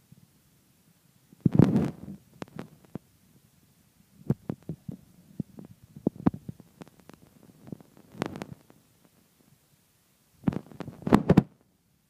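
Irregular soft thumps, knocks and scuffs in three bouts: cats clawing and shoving a sisal scratcher toy on a wooden roller wheel and a stuffed kicker toy across a wooden floor.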